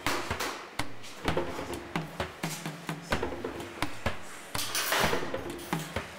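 Background music with a steady clicking beat about two to three times a second and short repeating low notes, with a brief rush of noise about three-quarters of the way in.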